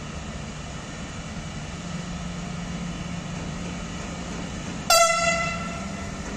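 ÖBB Taurus electric locomotive hauling a freight train at low speed with a steady low hum, and about five seconds in a single short horn blast that fades within about a second.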